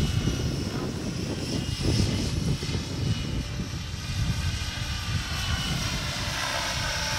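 Radio-controlled model helicopter in flight, its motor and rotors giving a steady high whine of several tones over an unsteady low rumble.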